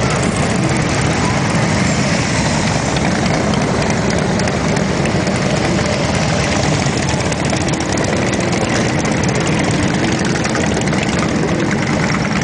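A procession of large cruiser and touring motorcycles rolling past at low speed, their engines idling and rumbling together in a steady, loud drone.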